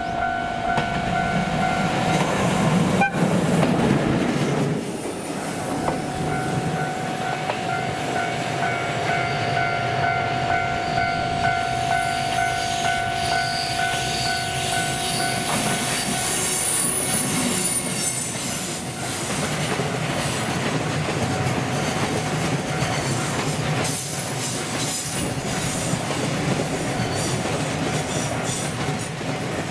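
JR Freight EF210 electric locomotive hauling a container train past on a curve, with a continuous wheel and rail rumble and clickety-clack. A steady locomotive horn tone sounds briefly at the start and again, longer, through the middle, and wheels squeal on the curve.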